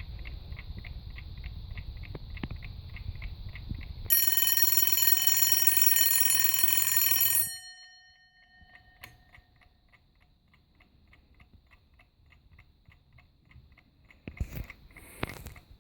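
Junghans repeater alarm clock ticking at about five beats a second over a low rumble. Then its alarm bell rings continuously for about three and a half seconds and cuts off suddenly, leaving the quieter ticking. A couple of knocks come near the end.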